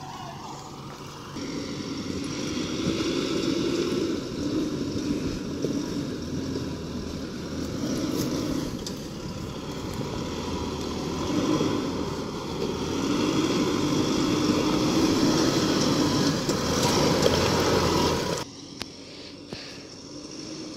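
4WD ute engine working hard as it crawls up a steep, rocky, rutted hill, the engine note swelling and easing several times under load. The sound drops away suddenly near the end.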